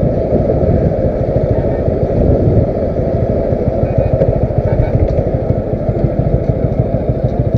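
Motorcycle being ridden, its engine running under a steady low rumble of wind and road noise on the rider's microphone.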